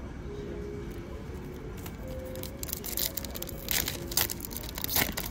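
Foil booster-pack wrapper of Pokémon trading cards crinkling in the hands. It comes as a few sharp crackles starting about halfway through, the loudest near the end, over a steady low hum.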